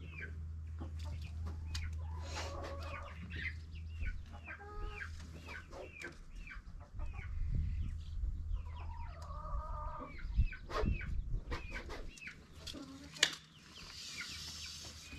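Chickens clucking and calling over and over, with many short high calls and a few lower ones. A steady low hum underneath stops about twelve seconds in, and a sharp knock comes about a second later.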